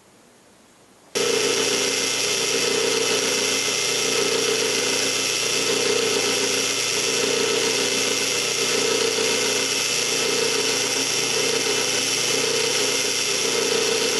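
Drill press running and boring a 7/16-inch hole through plywood, a steady motor whir that starts suddenly about a second in.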